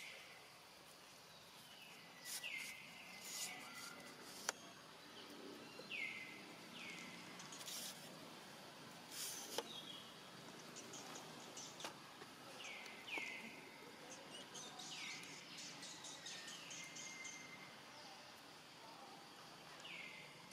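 Faint, high-pitched animal calls, about eight of them every few seconds, each sliding down and ending on a short held note, with a few light clicks between them.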